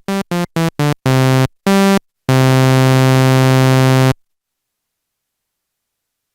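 Roland SH-01 Gaia synthesizer playing a bright, buzzy tone: a quick run of about five short notes, then two longer notes and a held note of about two seconds that stops about four seconds in.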